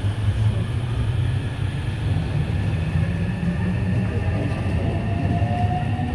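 Electric train pulling out of the station past the platform: a steady low rumble with a faint whine that rises in pitch as the train gathers speed.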